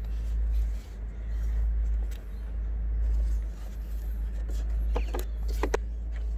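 Plastic bit-set case and its bits being handled, with a few sharp clicks about five seconds in, over a steady low rumble.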